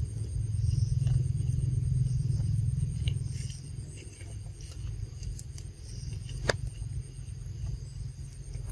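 Outdoor ambience: a low rumble that eases after about three seconds, under a steady high-pitched hum, with one sharp click about six and a half seconds in.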